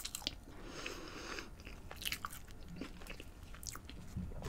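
Close-miked mouth sounds of someone eating a breaded veggie McChicken sandwich: soft chewing with faint, scattered crunchy clicks.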